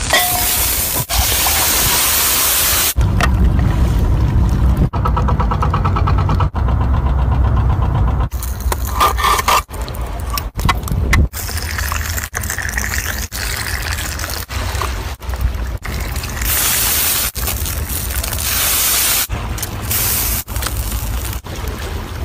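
Liquid sizzling and hissing on a hot stone slab under an enamel mug. The sound is loud and noisy and breaks off abruptly several times between takes.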